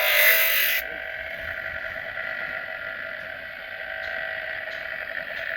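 A loud hiss for under a second, then a small power tool running with a steady whir.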